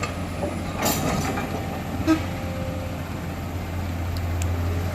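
Heavy diesel engine running with a steady low drone, with a brief clattering burst about a second in and a short knock about two seconds in.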